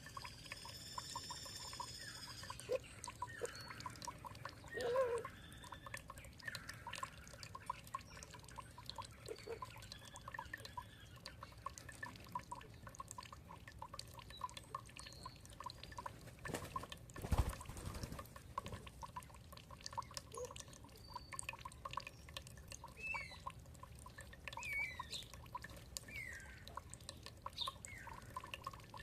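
Water dripping and trickling in steady, quick drops, with songbirds calling over it: a ringing call near the start and short chirps later on. One loud thump comes a little past the middle.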